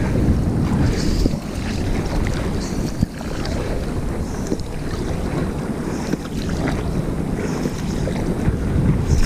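Wind buffeting the camera microphone over sea water splashing and sloshing around a stand-up paddleboard in the surf, as a steady, low rumbling noise.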